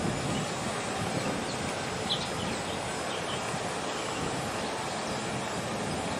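Steady low rumble and hiss of a large container ship passing close by, with a few faint high chirps about two to three seconds in.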